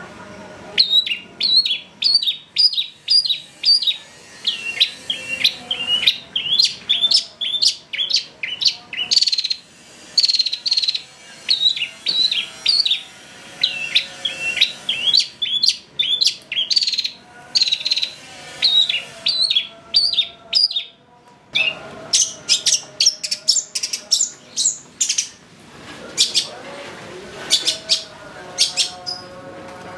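Long-tailed shrike (cendet) singing in an agitated, fast string of short sharp notes, several a second. It breaks off briefly twice, and lower, steadier notes join in near the end.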